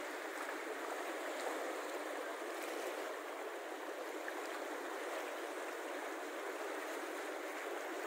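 Steady, even rush of a mountain river's flowing water.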